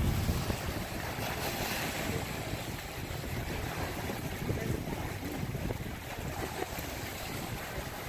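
Sea waves washing against a rocky shoreline, with wind buffeting the microphone in a steady low rumble.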